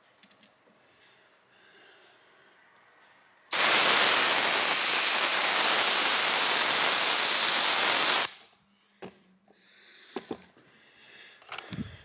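Pressurised refrigerant and nitrogen hissing out of the brass fill valve on a Secop BD35F refrigerator compressor as the valve is pressed open. The hiss starts suddenly a little over three seconds in, holds steady for about five seconds and stops when the valve is released. This is the 'bleeding' that empties the cooling system of its refrigerant.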